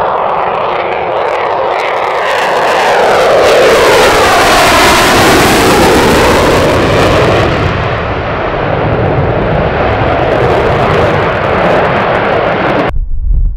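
F-22 Raptor's twin jet engines passing low and fast, loudest about four to seven seconds in, with the noise sweeping down and back up in pitch as the jet goes by. Near the end it cuts abruptly to the deep, low rumble of another pair of jets.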